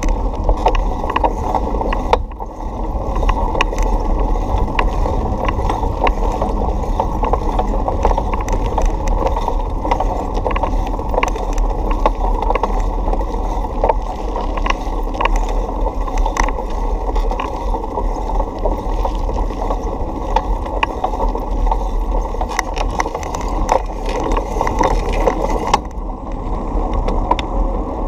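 Bicycle rolling along a cracked asphalt street: a steady, muffled rumble of tyres and wind, with frequent small rattles and clicks from the bike and camera mount jolting over the rough surface.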